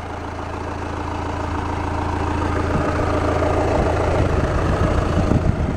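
Volkswagen 2.0-litre common-rail TDI diesel engine idling steadily and smoothly, growing gradually louder.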